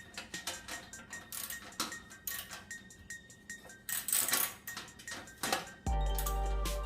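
Light metallic clinks and taps of bolts and tools handled on mower parts, over faint background music; about six seconds in a louder music passage with a deep bass note comes in.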